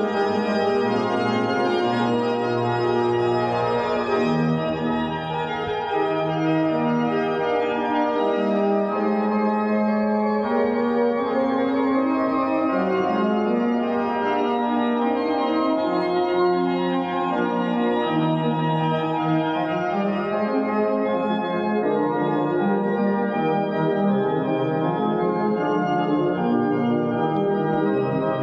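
Organ music: slow, sustained chords whose notes change every second or two.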